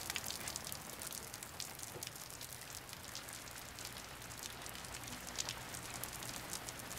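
Steady rain falling, many fine drops pattering, with a faint low hum underneath.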